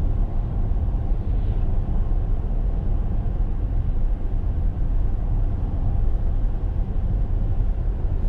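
Steady road and engine rumble heard inside a moving vehicle cruising down the highway.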